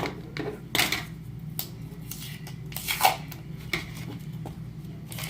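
Scissors cutting a sheet of paper in half, with irregular snips and the paper rustling as it is handled.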